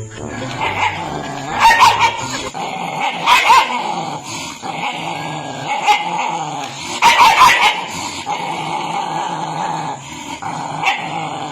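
A dog growling and barking, with a continuous snarl broken by about five loud short barks.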